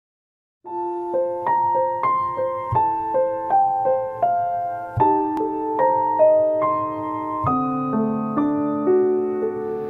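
Intro music: a solo piano melody of single struck notes, two or three a second, beginning about half a second in after a moment of silence.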